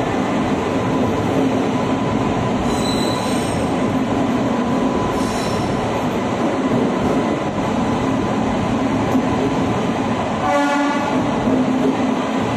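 Howrah-Kalka Mail passenger coach rolling along a station platform, heard from the open coach doorway: a steady, loud running rumble of wheels on rail. About ten and a half seconds in, a brief higher-pitched tone sounds over it.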